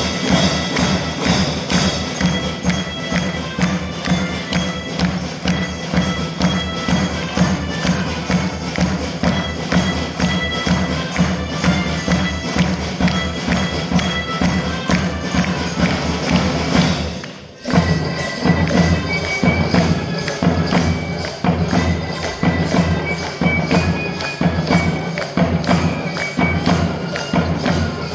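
School band drumming: a steady rhythm of drums with other percussion, and short high melodic notes over the beat. About two-thirds of the way through the sound briefly drops away, then returns with a denser, quicker beat.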